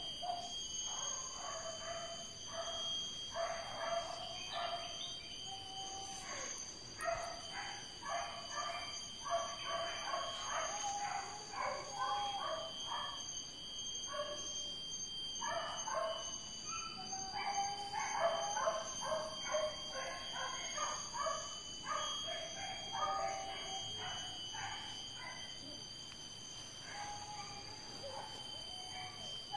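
A pack of hunting dogs barking and yelping in rapid, overlapping calls, with a lull around the middle and fewer calls near the end, over a steady high-pitched drone.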